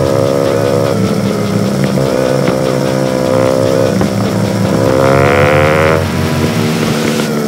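Motorcycle engine running while riding, its pitch shifting with the throttle and climbing between about four and six seconds in.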